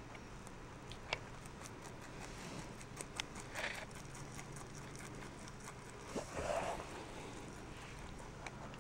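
Rabbit chewing carrot tops: a quick run of small crunching clicks, with a few louder rustling crunches of the leafy greens, the loudest about six and a half seconds in.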